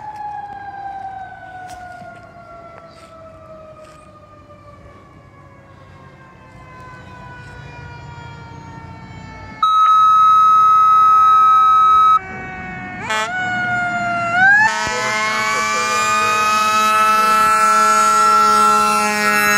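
Fire engine siren slowly winding down in pitch, then a long steady horn blast about ten seconds in, a short rising whoop, and the siren winding back up to a high steady wail that grows louder as the truck draws near.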